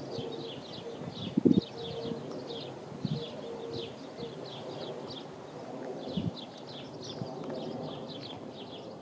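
Small birds chirping, a steady run of quick, short high notes. A few low thumps break in, the loudest about a second and a half in.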